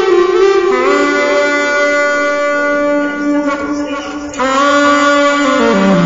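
Saxophone playing long held notes, moving to a lower note about a second in, growing softer for a moment before a fresh note about four seconds in, then stepping down in pitch near the end.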